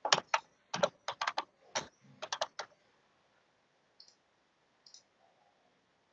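Typing on a computer keyboard: a quick, uneven run of about a dozen key clicks, then two faint clicks a second or two later.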